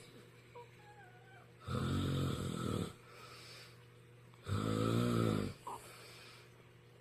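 A man snoring loudly in his sleep: two long, rumbling snores about a second each, roughly three seconds apart.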